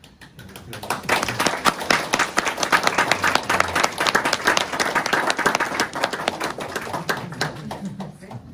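Audience applauding: many hands clapping, building up about a second in and dying away near the end.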